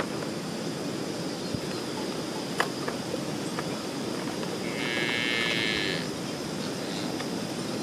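A cow mooing once, a call of a little over a second about halfway through, over a steady rushing background noise.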